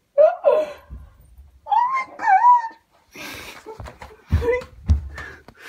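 A woman's excited, wavering high-pitched squeals, two short cries in the first half, then rustling and a few heavy low thumps about half a second apart near the end.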